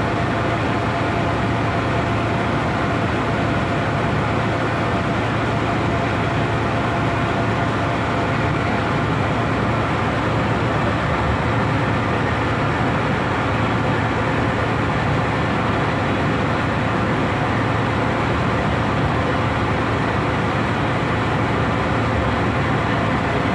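Passenger boat's engine running steadily: a constant low hum under an even rushing noise.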